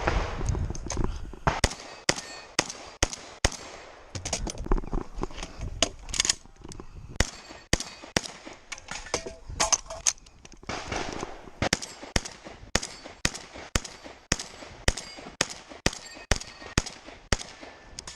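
Rock Island Armory VR-80 semi-automatic 12-gauge shotgun firing fast strings of shots, about two a second, with short pauses between strings and fainter shots in between.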